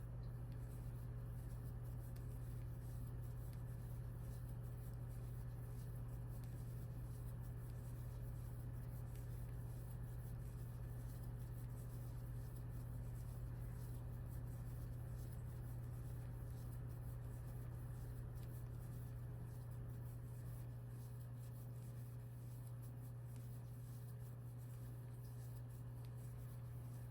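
Steady low hum, with faint light rubbing and scratching of a crochet hook drawing yarn through single crochet stitches.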